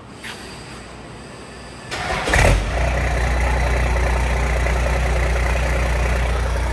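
First-generation Cummins 12-valve inline-six diesel cranking for a moment about two seconds in and catching almost at once, then settling into a steady idle. It fires right up despite not having been started in a long time.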